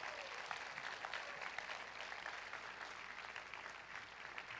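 Audience applauding: a dense, steady patter of many hands clapping that eases off slightly near the end.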